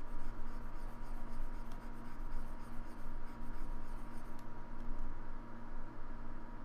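Steady electrical hum and hiss on a desktop microphone, with faint scratching from a stylus or mouse working the brush strokes that stops a little over four seconds in.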